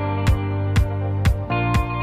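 Background music with a steady beat of about two strikes a second over held pitched notes.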